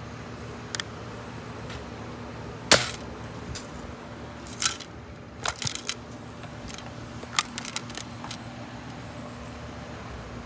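Pellet gun being handled and fired: one loud, sharp snap about three seconds in, then several groups of smaller metallic clicks and knocks.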